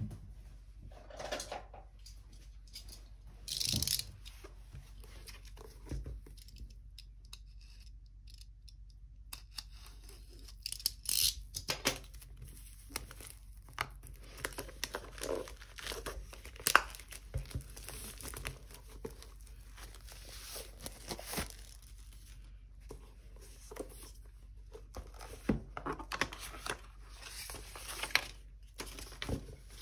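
Clear plastic shrink wrap being torn and peeled off a hardcover notebook: irregular bursts of crinkling, crackling plastic and sharp snaps, with a quiet lull a few seconds in.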